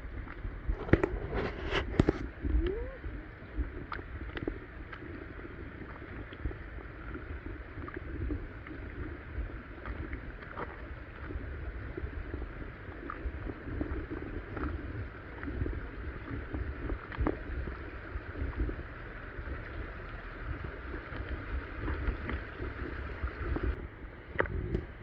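Stream water sloshing and gurgling close to the microphone as a person floats and moves along in it, with a few sharp splashes about one to two seconds in and a low rumble underneath.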